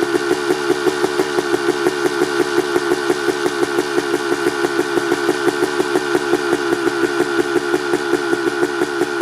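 1989 Honda CR250R's 250cc single-cylinder two-stroke engine, fitted with an FMF Gnarly exhaust pipe, idling steadily after a cold start, with an even popping beat of about five or six pulses a second and no revving.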